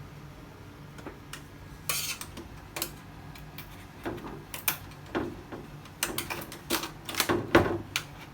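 Irregular clicks, taps and light clinks of small tools and parts being handled while a technician works on an LED TV's backlight, with several louder knocks close together near the end, over a faint steady hum.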